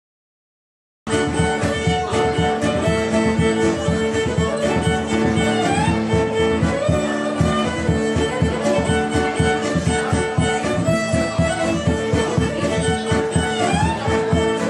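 Live Scottish folk tune: fiddle leading the melody over strummed acoustic guitar and a steady bodhrán beat, cutting in suddenly about a second in.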